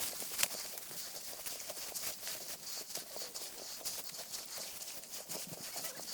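Irregular crunching footsteps and rustling through dry farm vegetation, over a steady high hiss.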